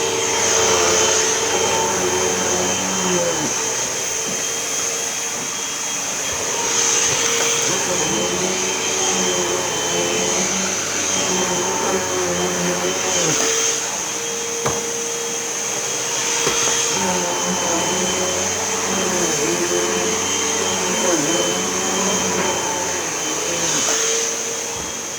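Hoover Elite Whole House upright vacuum running steadily, with its motor note wavering and dipping every few seconds.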